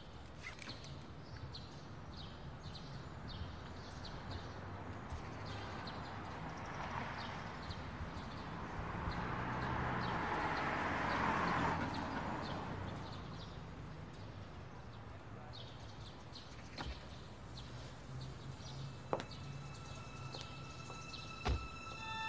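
Outdoor street ambience with birds chirping faintly; a car drives past, its tyre noise swelling and fading about halfway through, and a few sharp clicks follow in the last few seconds.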